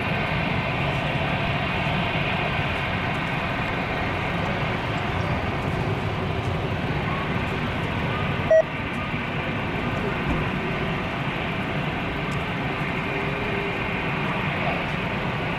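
Airbus A340-300 on final approach, its four CFM56 engines a steady, even jet rumble with a faint whine over it. There is a single short click about halfway through.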